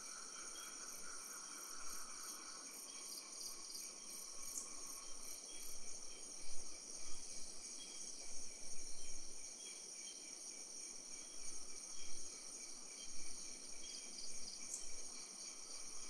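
A night chorus of crickets and other insects chirring steadily at several high pitches. A lower trill fades out about two seconds in. Soft low rumbles come and go through the middle and later part.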